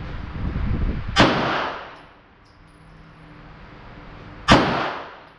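Two Glock pistol shots about three seconds apart, each a sharp crack that trails off over about half a second.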